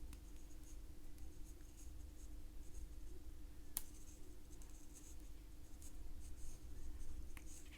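Faint scratchy rubbing of a 2.2 mm crochet hook drawing polyester yarn through stitches, with one sharp click a little before the middle, over a faint steady hum.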